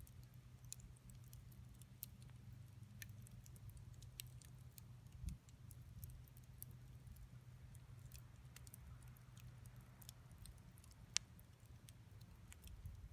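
Wood fire crackling faintly with scattered small pops and one sharper pop about eleven seconds in, over a faint low steady hum.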